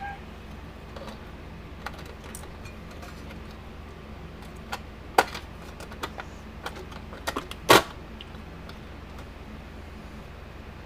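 Small metal parts clicking and clinking as spacers and flat washers are handled and fitted onto bolts, with two louder knocks, about five seconds in and near eight seconds. A steady low hum runs underneath.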